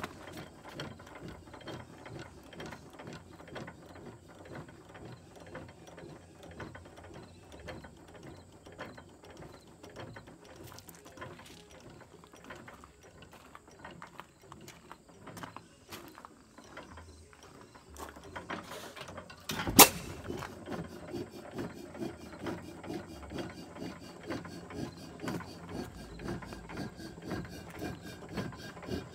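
6 hp Associated hit-and-miss engine running, its valve and governor gear clattering in a steady run of clicks. There is one loud sharp bang about two-thirds of the way in.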